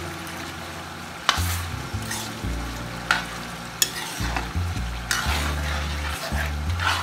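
Metal spatula stirring and scraping diced vegetables around a wok as they sizzle in a little sauce, with several sharp scrapes against the pan.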